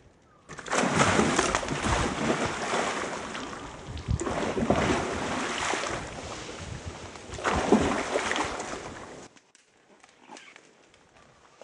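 Hooked pike thrashing at the water's surface close to the bank, splashing in three surges, then cutting off suddenly.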